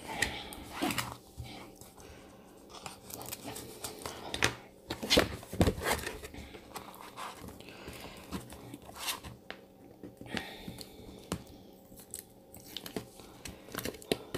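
Hands unwrapping a pad of craft paper: irregular rustling, crinkling and tearing of its paper wrapper band, with scattered clicks and taps.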